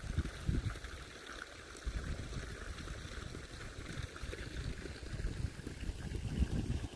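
Outdoor nature sound of steadily running stream water, with uneven low rumbling underneath.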